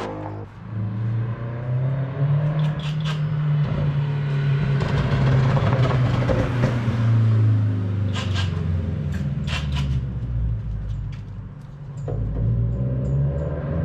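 A motor running with a steady low hum that shifts slightly in pitch and eases off briefly near the end, with a few sharp clicks partway through.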